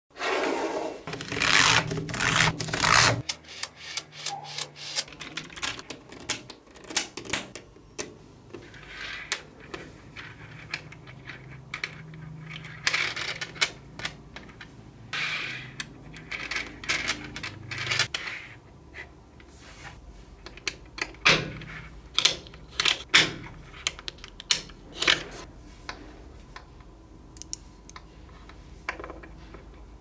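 Small magnetic balls clicking and clacking as they snap together and are pulled apart by hand, in quick irregular clicks, with a denser clatter in the first three seconds.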